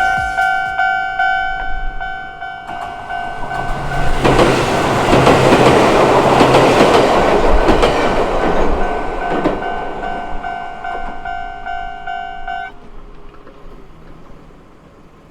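Japanese level-crossing warning bell dinging repeatedly as a Chichibu Railway train passes over the crossing. The train noise swells suddenly about four seconds in and is loudest in the middle. The bell stops near the end, while the train noise fades out.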